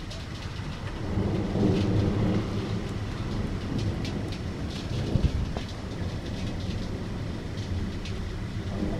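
Thunder rumbling low over steady rain. The rumble swells about a second in and peaks sharply and loudly a little past the middle.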